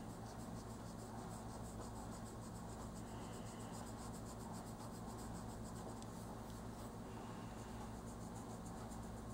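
Oil-based colored pencil rubbing lightly over coloring-book paper in quick, faint scratching strokes, under a steady low hum.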